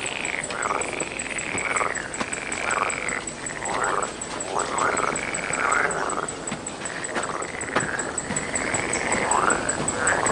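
Frogs croaking in a chorus of repeated calls, each about a second long, over a steady, fast, even chirping of an insect such as a cricket.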